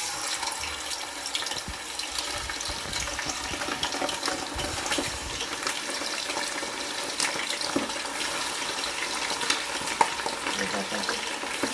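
Marinated chicken pieces deep-frying in hot oil: a dense, steady sizzle scattered with crackles and pops.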